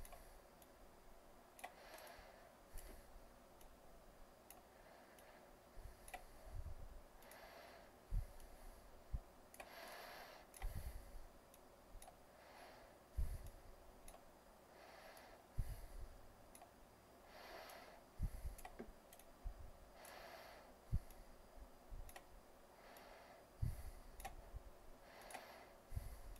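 Faint, irregular clicking of a computer mouse, a click every second or so, some carrying a dull low knock.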